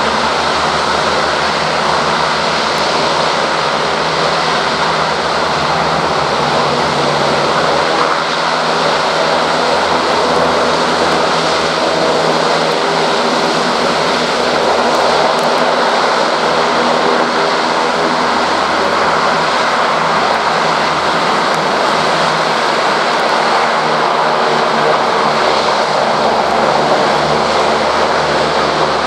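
LCAC hovercraft's gas turbines, lift fans and ducted propellers running at power, a loud, steady roar with a low hum of blade tones beneath it. The craft turns on the beach and pulls away into the surf on its air cushion.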